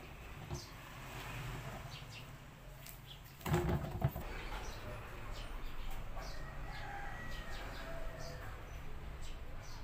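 A white plastic drum and its lid being handled, with a short cluster of knocks about three and a half seconds in, over faint background noise.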